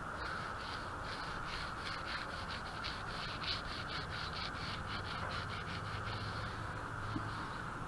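Natural-bristle brush scrubbing stain remover onto window trim in rapid back-and-forth strokes, several a second, easing off about six seconds in, over a steady background hiss.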